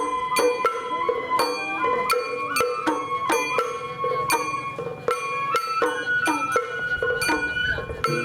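Sawara bayashi festival music from a hayashi ensemble. A held, bending melody line, typical of a bamboo flute, plays over regular percussion strikes about twice a second, from drums and a ringing metal hand gong.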